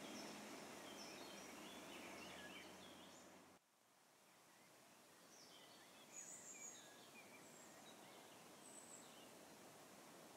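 Faint birdsong: scattered short chirps over a quiet background hiss, with a low hum in the first few seconds. The sound cuts out abruptly about three and a half seconds in and then fades back, the chirps carrying on.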